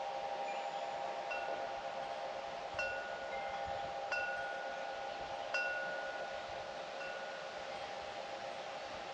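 Wind chimes ringing: several lower tones hum on steadily, while a higher chime is struck about every second and a half and rings out, fading after each strike.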